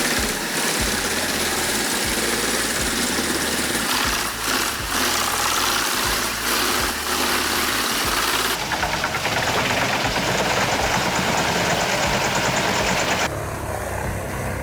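Large wood chipper machinery running loud and steady, its engine and chipping noise changing abruptly about eight and a half seconds in and again near the end.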